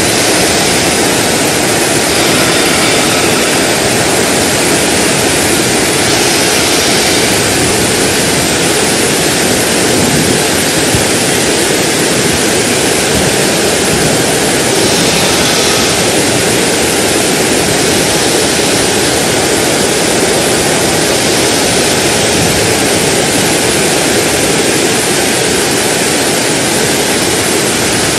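Loud, steady rush of floodwater running down a flooded street.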